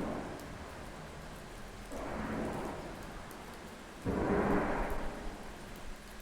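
An unexplained sound from the sky, a rumbling, blaring tone that swells up about every two seconds and lasts about a second each time. The swell about four seconds in is the loudest, over a steady background hiss.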